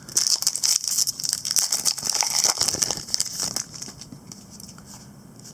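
Foil trading-card pack wrapper crinkling and being torn open, a dense crackle for about three and a half seconds that then dies down.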